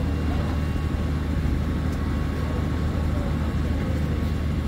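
A large engine running steadily, a constant low drone with no change in pitch.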